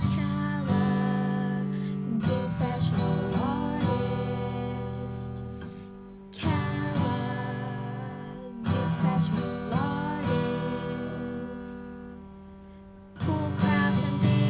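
Intro music: plucked string chords struck every few seconds and left to ring and fade, with some notes bending in pitch.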